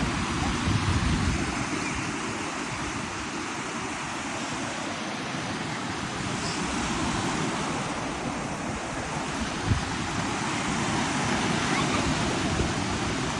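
Ocean surf washing steadily onto the beach, with wind buffeting the microphone. There is one short thump about ten seconds in.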